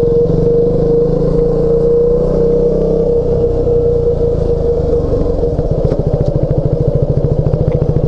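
KTM 200 Duke's single-cylinder four-stroke engine running at low speed as the bike is ridden slowly. About five and a half seconds in, the engine note turns into a slower, evenly spaced beat of separate firing pulses as the revs drop.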